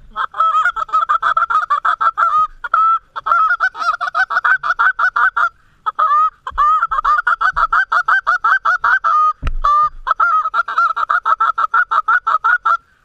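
Rapid goose honking and clucking, several loud honks a second in long runs broken by short pauses. A single low thump comes about nine and a half seconds in.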